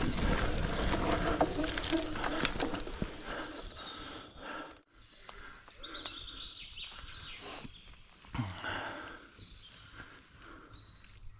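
Mountain bike rolling down a damp dirt trail: tyre and bike noise with a couple of sharp clicks. About five seconds in the sound cuts out briefly, then a quieter stretch follows with birds chirping and one brief knock past halfway.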